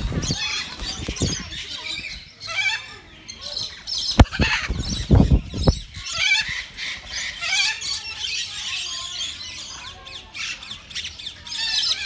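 Aviary parrots, macaws among them, squawking and chattering without pause. A sharp loud knock about four seconds in, then about a second of low thudding.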